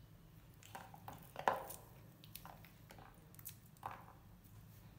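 Baby monkey eating lotus seeds: scattered faint crunches and clicks from chewing and from handling the seeds, the loudest crunch about one and a half seconds in.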